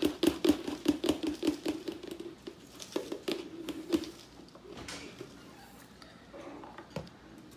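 Dry decarboxylated cannabis rattling and knocking inside the Ardent Flex decarboxylator's canister as it is shaken to break it up: a rapid patter of knocks for about four seconds, then quieter, with one sharp knock near the end.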